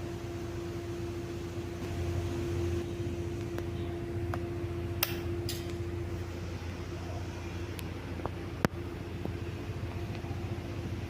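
Cosmos 56-inch industrial ceiling fan running: a steady motor hum over a low drone, with a few sharp clicks and ticks. The hum's tone fades out about six seconds in.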